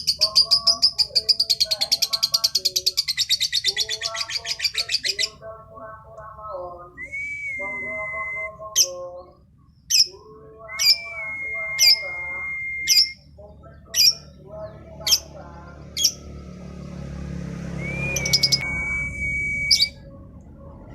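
Female lovebird chirping: a fast, high, chattering trill for about the first five seconds, then single sharp chirps roughly once a second mixed with a few held whistling notes.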